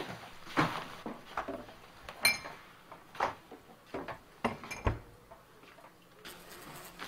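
Crockery and cutlery clinking and knocking in a series of separate short knocks, with one bright ringing clink a little over two seconds in.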